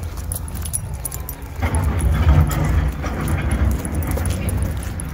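Walking noise on a handheld microphone: a low rumble of wind on the microphone that swells for about a second around two seconds in, over a run of light jingling clicks.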